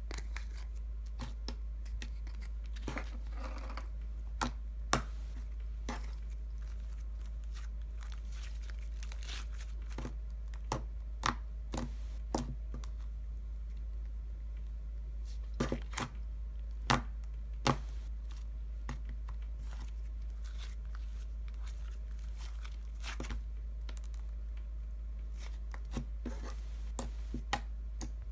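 Fingers poking, pressing and spreading a white-glue-based butter slime, making scattered sharp clicks and pops in small clusters, over a steady low hum.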